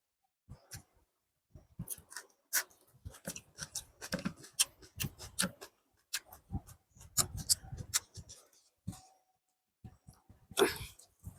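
Close-miked chewing and mouth sounds of someone eating biryani rice and chicken curry: irregular wet smacks and clicks, with one louder noisy burst near the end.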